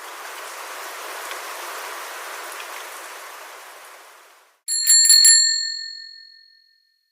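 A steady hiss of noise that swells and fades away, then a small bell rung several times in quick succession about two-thirds of the way in, its ring dying away over about two seconds.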